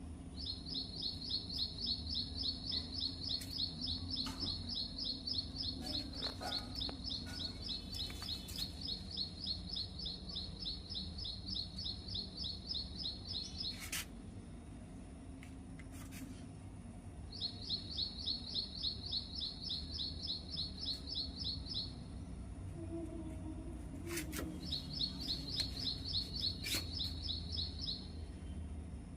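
A small bird chirping in fast, evenly spaced trills at a steady high pitch, in three long runs with pauses between, over a low steady hum.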